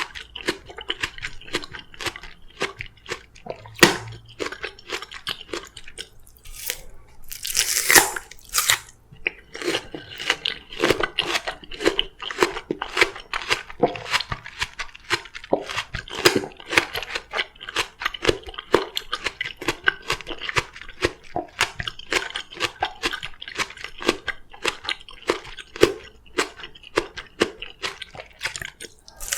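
Close-miked crunchy chewing of crisp oriental melon: rapid, irregular crunches, with a louder, hissing burst of noise about seven seconds in.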